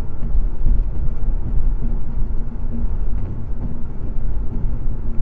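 Steady low road and engine rumble inside a car's cabin at highway speed, picked up by a dash camera.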